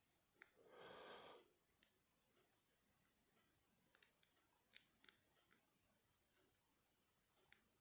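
Faint, sharp metallic clicks of a lock pick and tension tool working the pins inside a padlock during single-pin picking: about seven separate clicks, loudest around four to five seconds in. A soft breath out comes about a second in.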